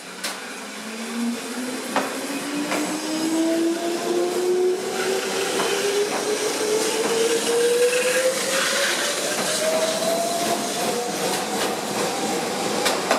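Konan Railway 7100-series electric train (ex-Tokyu 7000 series) pulling away from the platform: its traction motor whine climbs steadily in pitch as it accelerates, with a few sharp clicks from the wheels over rail joints. The running noise grows louder over the first few seconds, then stays level as the cars pass.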